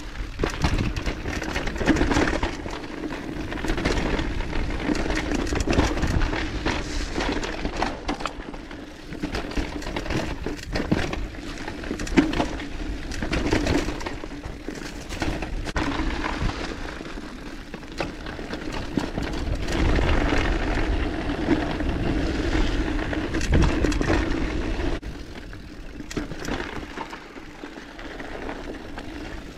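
Devinci mountain bike riding down dirt singletrack: tyres rolling over the dirt, with frequent rattles and knocks from the bike over bumps and roots, swelling and easing with speed.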